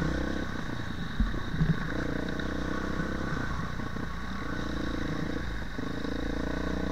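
Dirt bike engine running while riding on a dirt trail, the throttle rolled off and back on a few times so the engine note falls away and returns. A couple of sharp knocks from the bike going over bumps about a second in.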